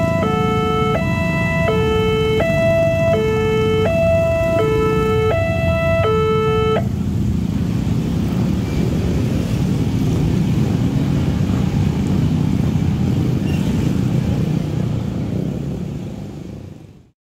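Railway level crossing warning bell (genta) sounding its electronic two-tone alarm, a high and a low note swapping about every half second. It stops about seven seconds in, as the crossing reopens after the train has passed. The rumble of motorcycles and cars moving over the crossing follows and fades out near the end.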